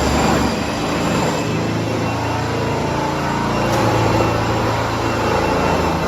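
Loud, steady mechanical noise with a low hum running underneath, starting abruptly and holding an even level throughout.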